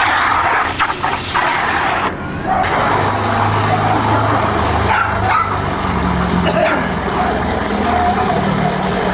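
Dogs playing together, with a few short barks and yips over a steady low rumble.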